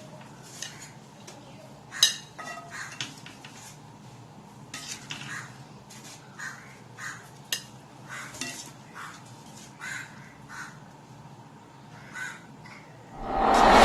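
A serving spoon scraping and knocking against a metal pot as cooked biryani is scooped out into a dish. The scrapes come in short, irregular strokes, with a louder clatter near the end.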